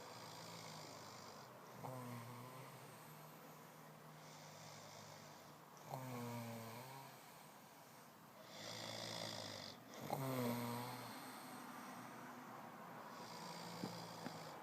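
A man snoring: three pitched snores about four seconds apart, the last the loudest. Between them come softer, hissing breaths.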